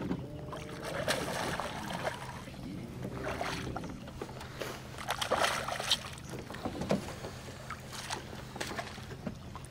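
A hooked bass thrashing and splashing at the water's surface beside a small boat, in several bursts, the biggest about five to six seconds in, over a steady low hum.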